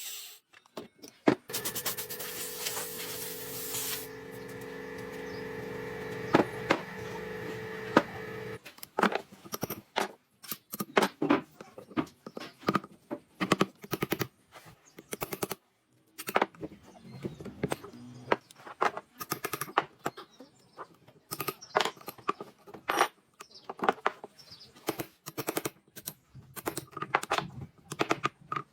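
Woodworking sounds: a machine runs with a steady hum for about eight seconds and cuts off suddenly. A long run of irregular knocks and taps follows, as of tools working on wood.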